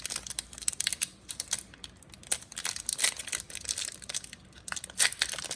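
Plastic wrapper of a trading-card pack crinkling and crackling irregularly as it is handled and opened.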